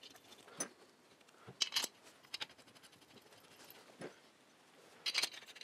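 Sparse small metal clicks and clinks of washers and head bolts being fitted by hand onto a Triumph twin's alloy cylinder head, the loudest pair about a second and a half in and a quick cluster near the end.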